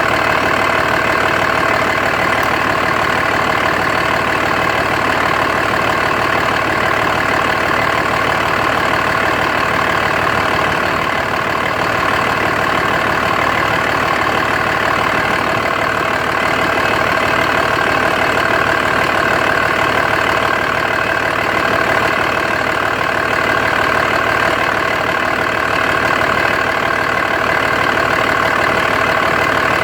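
Dodge Ram 2500's 5.9-litre Cummins inline-six turbo diesel idling steadily. The owner is unsure whether this idle is rough and suspects excessive blow-by.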